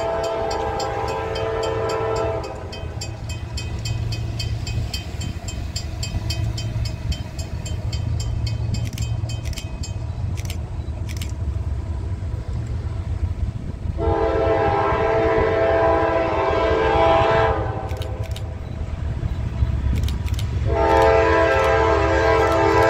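Air horn of an approaching diesel locomotive sounding long blasts over the steady low rumble of the train. One blast ends a couple of seconds in, another comes about two-thirds of the way through, and a third starts near the end.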